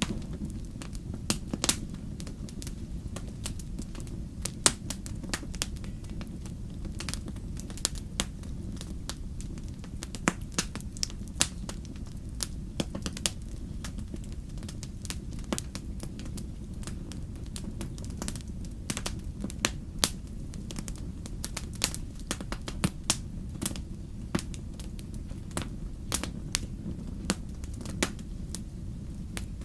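Wood fire crackling in a fireplace: a steady low rumble of flames with frequent sharp, irregular pops and snaps.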